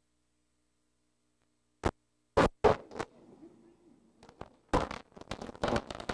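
Scratching and knocking noises from handling a camcorder: a few sharp clicks about two seconds in, then a denser run of scrapes and knocks near the end, after a stretch of dead silence.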